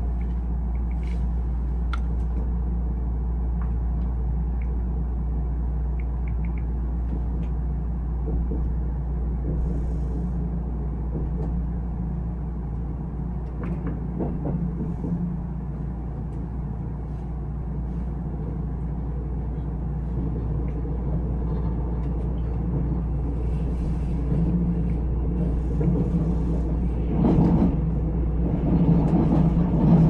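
Steady low rumble of a Nuriro passenger train running along the line, heard from inside the carriage, with a few faint clicks and rattles; it grows louder near the end.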